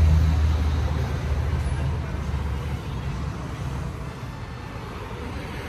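A road vehicle passing on a busy street, its low rumble loudest at the start and fading away over the first three seconds, leaving steady traffic noise.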